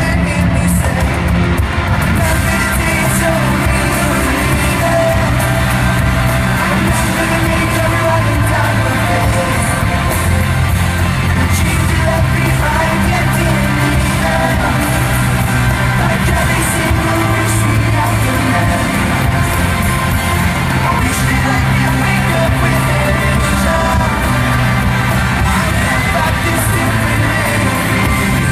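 Live pop-rock band playing loud amplified music in a large arena, with singing and the crowd yelling along.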